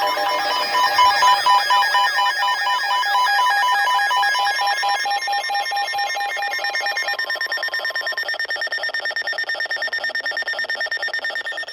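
Weather radio alert alarms sounding together: several overlapping electronic beeping and warbling tones, with a steady tone that stops about eight seconds in, fading near the end. This is the alert that comes before a NOAA Weather Radio warning is read out.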